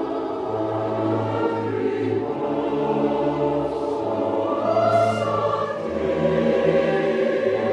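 Background music: choir singing sustained chords over an orchestra, with a low bass line shifting notes.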